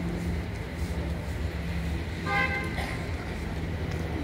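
A short horn toot about two seconds in, one flat note lasting under half a second, over a steady low hum.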